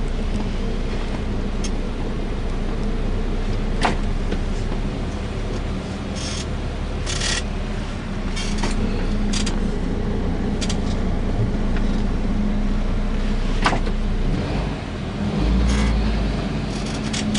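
Car running along the road heard from inside the cabin: a steady low engine and road rumble, with a couple of sharp clicks and a few brief hissy rattles.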